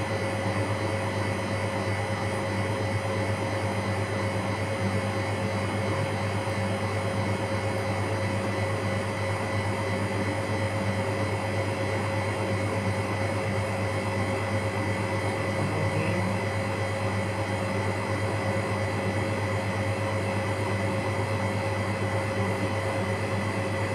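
Steady drone of an electric fan motor moving air: a low hum with a steady higher tone over an even rush of air, unchanging throughout.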